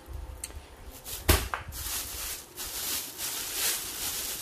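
Plastic shopping bag rustling and crinkling as hands rummage inside it, with one sharp knock about a second in.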